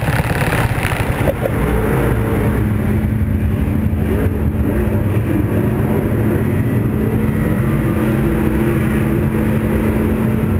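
Race car engine running steadily, heard from inside the cockpit: a rough low rumble with a steady drone that settles in about a second in.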